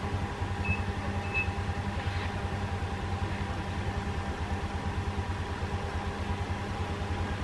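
Steady mechanical hum of a running motor with a fast, even throb, and two short high beeps about a second in.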